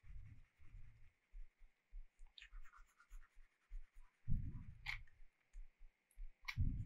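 Faint desk sounds of someone working a computer sculpting program with a pen tablet or mouse: three sharp clicks, a few soft low thumps and scratchy strokes over a steady hiss.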